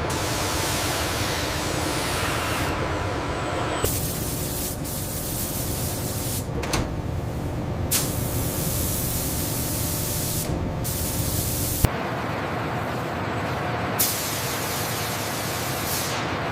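Steady hissing noise that changes character abruptly about four seconds in and again about twelve seconds in, with a few sharp clicks.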